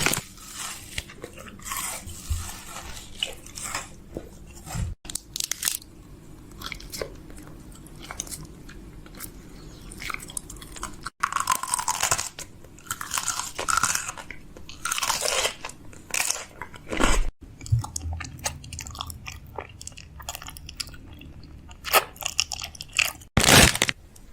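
Crunchy chewing: irregular crunches and bites, like something hard and dry being chewed, with the loudest crunches near the end.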